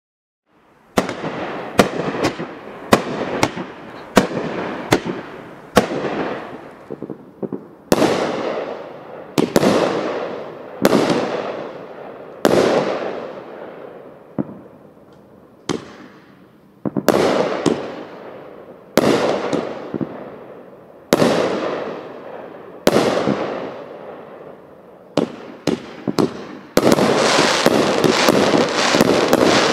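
A 24-shot, 500 g Kraken Skulls firework cake firing. It starts about a second in with a sharp bang every one to two seconds, each followed by a fading crackle. Near the end the shots run together into a dense, continuous crackle.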